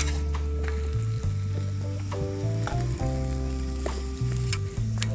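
Stuffed parathas sizzling in oil on a hot flat griddle as a spatula presses them, with a few short scrapes of the spatula. Background music with a bass line plays under it.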